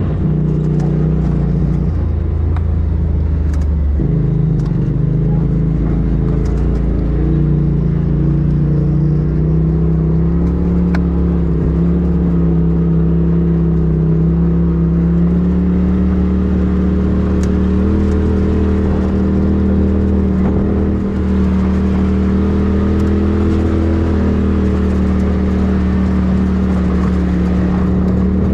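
Polaris RZR side-by-side's engine running at low trail speed, heard from inside the open cab. Its pitch dips briefly twice near the start, then rises slowly as the machine speeds up and holds steady.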